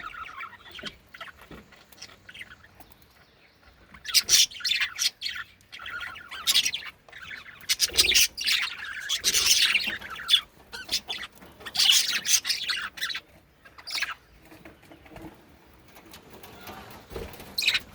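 Pet budgerigars chirping and chattering in quick high bursts, busiest in the middle stretch and quieter toward the start and end.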